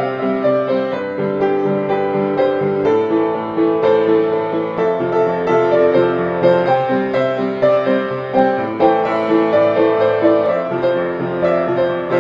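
Background instrumental music led by piano or keyboard: a continuous run of held notes and chords.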